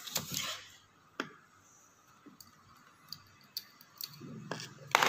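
A few light clicks and taps, as a spatula of solid ammonium chloride is scraped from the reagent jar and tapped against a glass test tube. The loudest clicks come at the start and about a second in, with softer ticks after.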